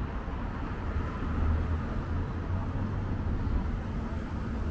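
City street traffic: a steady low rumble of passing vehicles, swelling slightly about a second and a half in.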